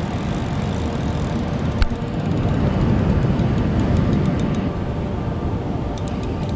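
Steady rumble of breaking surf and wind on the microphone, with a single sharp click about two seconds in.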